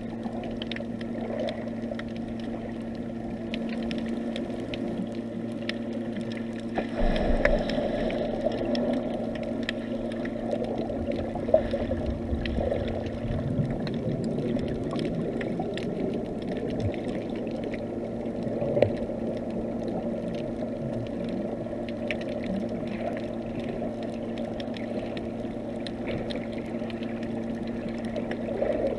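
Underwater sound heard through a GoPro's housing as it lies on the sea floor: a muffled wash of moving water over a steady low hum, with scattered faint clicks. The water noise swells about seven seconds in, and a couple of sharper clicks stand out.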